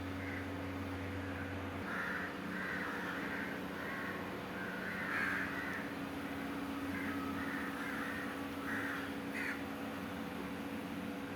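Repeated harsh bird calls in short runs, over the steady low hum of an engine running.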